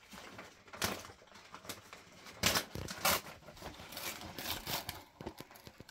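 Brown paper takeaway bag being torn and crinkled open at its stapled top: scattered rustling with several sharp rips, the loudest about two and a half and three seconds in.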